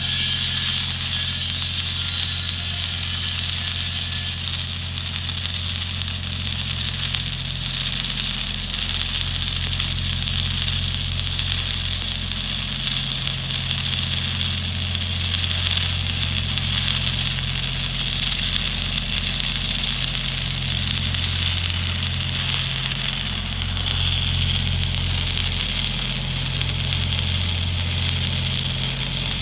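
Stick (shielded metal arc) welding with a cellulosic E6010/E7010-type electrode: the arc crackles and hisses steadily over a low, steady hum.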